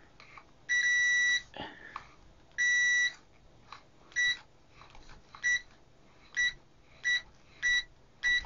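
VENLAB VM-600A multimeter's continuity beeper sounding each time the test probe tips touch. There are two longer high-pitched beeps first, then a run of about six short beeps as the probes are tapped together. The beeper responds fast.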